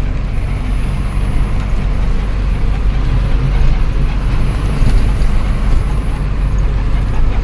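Cab noise of an Ashok Leyland 1214 truck driving on the highway: the diesel engine's steady low drone under even road noise.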